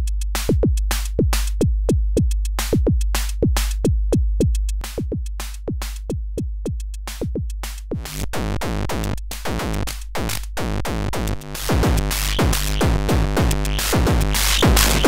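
Akai Tom Cat analog drum machine playing a steady pattern of kick and tom hits, each dropping in pitch, run through the Schlappi Engineering Angle Grinder feedback waveshaper and heard from its Grind output. About eight seconds in, the distortion starts to build, turning the hits gritty and noisy, and it is densest from about twelve seconds on.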